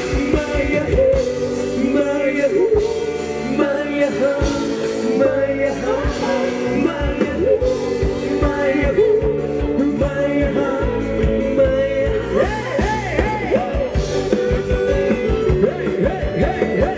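Live band playing fast ramwong dance music: a singer over a steady drum beat and bass.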